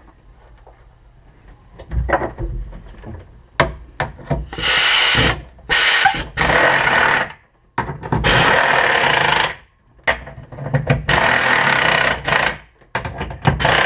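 Power drill/driver running the engine-mount bolts in, in four bursts of a second or two each with short pauses between them. A few knocks of handling the bolts and parts come first.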